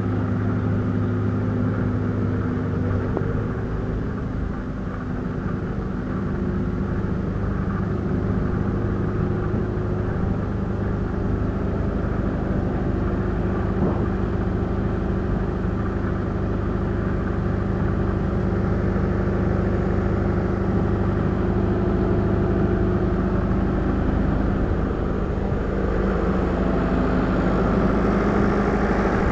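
A motor vehicle engine running steadily at an even, low speed, becoming a little louder near the end.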